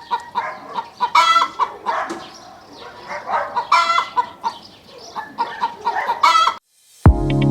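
Chickens clucking in quick repeated notes, with louder squawks about a second in, near four seconds and just after six seconds. The clucking cuts off near the end and music with a heavy beat begins.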